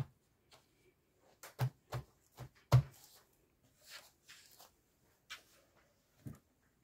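Handling noises: a series of short knocks and thumps, the loudest a little under three seconds in, followed by a few soft rustles.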